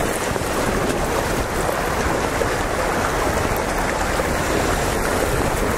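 Steady rushing noise of sea water washing over shore rocks, even throughout, with no distinct splashes or strokes.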